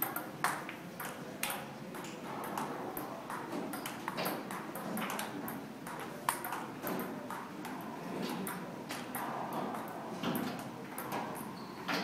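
Table-tennis ball hit back and forth with paddles, a string of sharp clicks at irregular spacing over a low murmur of room noise.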